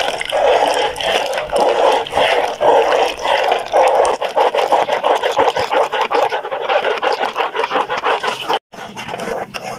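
Metal spoon stirring hot milk and custard mix in an aluminium pot, scraping the bottom and sides in quick repeated strokes. The sound cuts out abruptly near the end, then the strokes resume more quietly.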